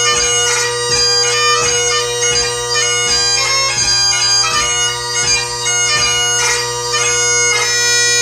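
Great Highland bagpipe played solo: steady drones under a chanter melody ornamented with crisp grace notes, settling on a held note near the end.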